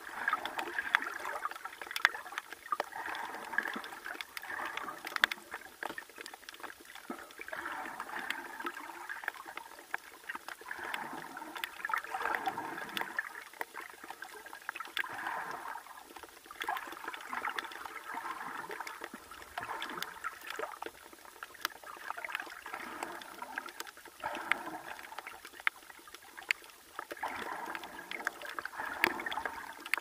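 Water gurgling and sloshing heard from underwater, muffled, swelling and fading every few seconds, with scattered sharp clicks.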